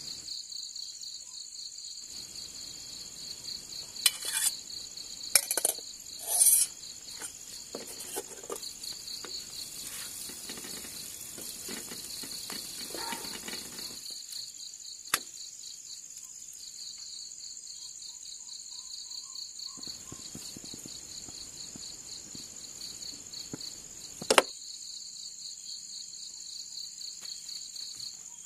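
Crickets chirping steadily in a fast, pulsing high trill. Over it come a few sharp clinks and scrapes of a spatula against a frying pan, bunched about a quarter of the way in, with a single louder clink near the end.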